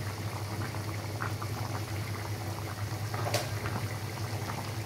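Chicken and small-fish curry bubbling at a steady boil in a pot, a dense crackle of small bubbles over a steady low hum. A single sharp click about three and a half seconds in.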